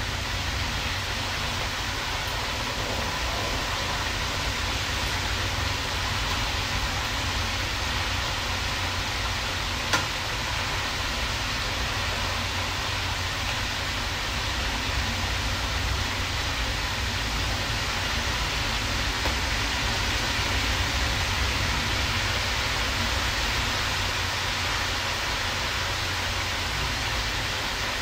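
Steady sizzling of food frying in pans on a stovetop, with one sharp click about ten seconds in.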